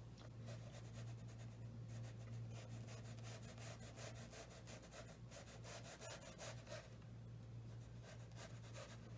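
Small watercolour brush stroking and dabbing on paper: faint, quick scratchy strokes, many in a row, over a steady low hum.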